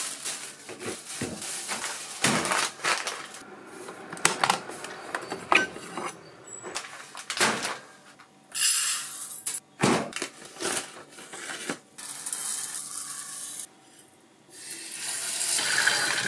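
Clinks and knocks of a stainless rice-cooker inner pot and other things being handled on a stainless steel counter. About two seconds before the end, tap water starts running steadily into the pot to wash the rice.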